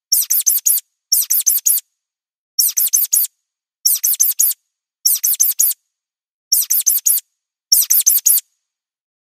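Mouse squeaks: rapid, very high-pitched squeaks in bursts of about four, repeated seven times roughly a second apart.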